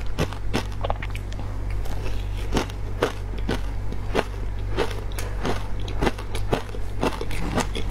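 Ice dusted with matcha powder being crunched between the teeth close to a clip-on microphone: a steady run of sharp crunches, about three a second, over a steady low hum.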